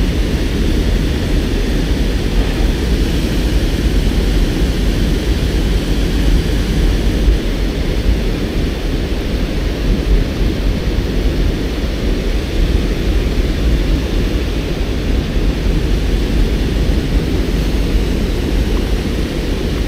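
White water of a river below a dam rushing steadily, a continuous low rumble with no breaks.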